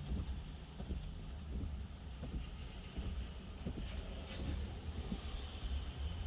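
Road and tyre noise inside the cabin of a Tesla Model 3 electric car driving on a wet road: a steady low rumble with a hiss of water spray from the tyres and faint scattered ticks.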